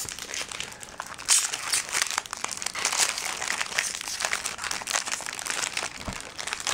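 Foil Magic: The Gathering booster pack wrapper crinkling and crackling as it is opened and handled, a dense run of small crackles.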